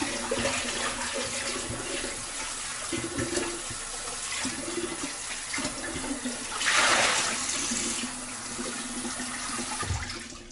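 Kitchen tap running into a sink while a bowl is rinsed and washed, with light knocks of the bowl. The water gets louder for about a second around seven seconds in, and the running water drops away near the end.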